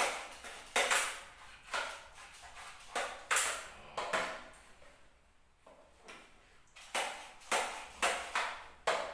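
Packaging being handled as a drone is taken out during unboxing: a string of about a dozen sharp rustles and scrapes, each fading quickly.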